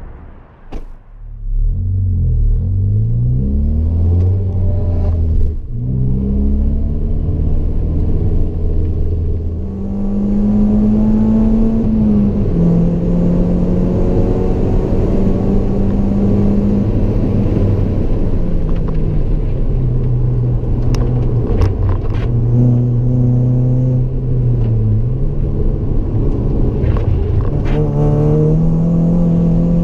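Turbocharged 2.0-litre four-cylinder of a tuned Volkswagen Golf Mk6 GTI with a Milltek centre pipe and Ragazzon cat-back exhaust, heard from inside the cabin while lapping a track. Revs climb under full throttle and drop back several times with gear changes and lifts.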